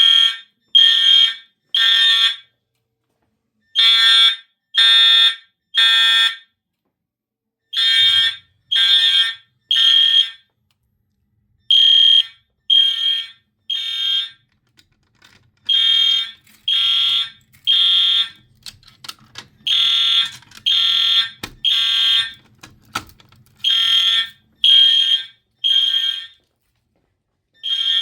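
Fire alarm horn strobes, a Genesis ceiling-mount unit and an Integrity unit, sounding the temporal-three evacuation pattern. Each round is three loud, high beeps about a second apart, then a pause, repeated over and over. A faint low hum and a couple of knocks come in partway through.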